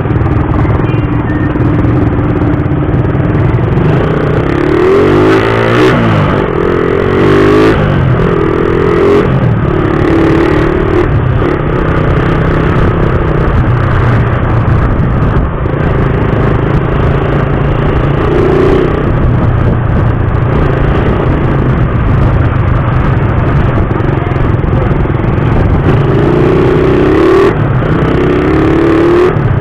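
Suzuki Raider 150 motorcycle engine running while riding, its pitch rising and falling in patches as it revs, under a steady rush of road and wind noise.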